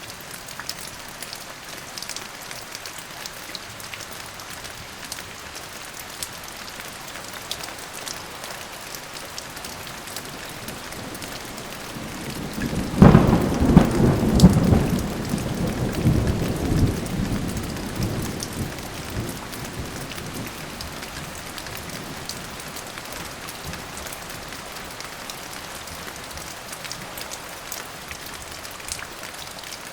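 Thunderstorm: steady rain falling throughout, with a clap of thunder about halfway through that starts sharply, rumbles, and dies away over several seconds.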